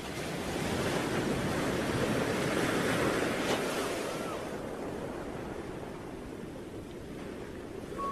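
Rushing noise of surf: one long swell that builds over the first second or so and then slowly eases off.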